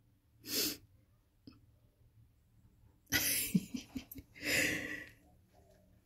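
A person breathing out close to the microphone: three breathy exhales or sighs, a short one about half a second in and two longer ones about three and four and a half seconds in.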